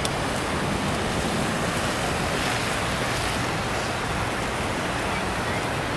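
Floodwater from a heavy downpour running across a flooded road, making a steady rushing noise.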